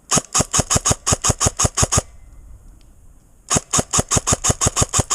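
Airsoft gun firing two rapid strings of shots, about eight a second: the first for about two seconds, then a second string after a pause of about a second and a half.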